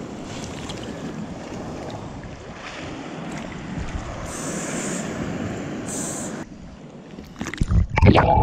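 Breaking surf and rushing water at a waterproof camera held at the waterline, building as a wave passes. About a second before the end the camera goes under and the sound turns to a loud, muffled underwater churning.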